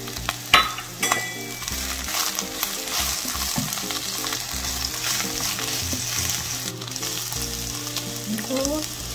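Sliced carrot, onion and cabbage sizzling in hot oil in a nonstick frying pan while being stirred with a silicone spatula. A couple of sharp knocks come near the start.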